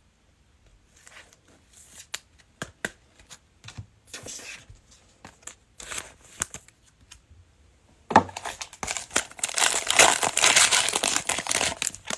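Trading-card pack wrapper being handled and torn open: a few light clicks and rustles, then loud crinkling over the last four seconds.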